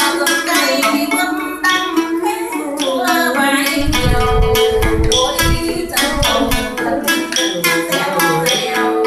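Vietnamese chầu văn singing: a woman's voice with a đàn nguyệt (moon lute) plucking along and sharp percussion clicks keeping time. A run of deep thumps comes about four seconds in.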